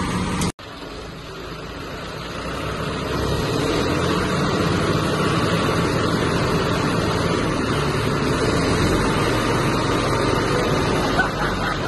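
Diesel engines of two John Deere tractors, a 5405 4x4 and a 5410, running hard under load as they pull against each other in a tug-of-war. After a brief cut-out about half a second in, the engine noise grows louder over the next few seconds and then holds steady.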